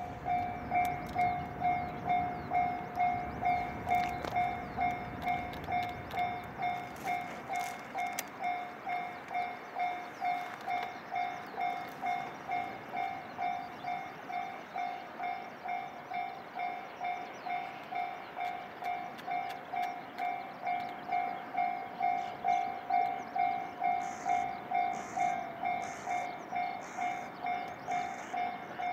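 Japanese railway level-crossing warning bell ringing steadily at about two strikes a second, a single pitched electronic 'kan-kan' tone, warning that a train is approaching.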